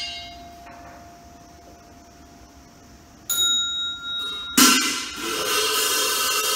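Buddhist temple bowl bell struck and ringing on with a long steady tone. About three seconds in, a smaller, higher-pitched bell is struck and rings briefly. Then a loud metallic crash about four and a half seconds in, followed by a dense, sustained ringing.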